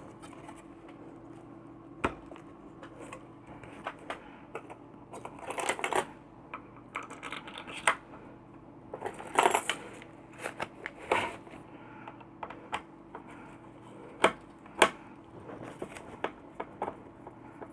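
Irregular clicks, taps and scrapes of small parts being handled and fitted as a compressor nebulizer is put back together, with a few louder rustling scrapes among them.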